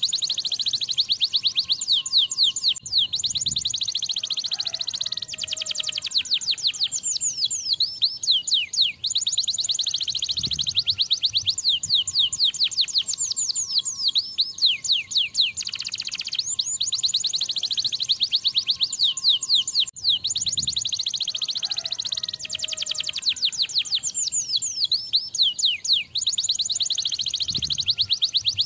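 Domestic canary singing continuously in long phrases of rapid, high trills, broken by brief pauses.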